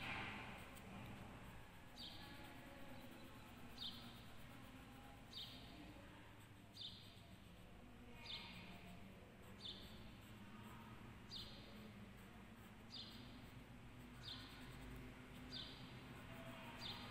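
A bird chirping: one short, high note falling in pitch, repeated about every one and a half seconds over faint room noise.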